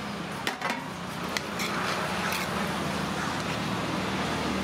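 Steady roadside traffic noise with a low hum, and a few light metal clinks in the first second and a half as the lid of an aluminium rice pot is handled.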